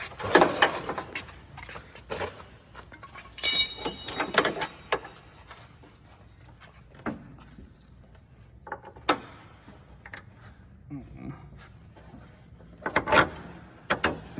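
Hand tools clinking and clanking against steel hardware as a truck cab-mount bolt is worked and tightened, in scattered knocks rather than a steady rhythm. A bright metallic ring sounds about three and a half seconds in.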